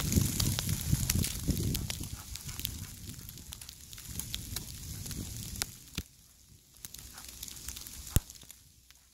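Snow crunching close to the microphone: a dense crackle with scattered sharp clicks, loudest in the first two seconds and fading to faint near the end.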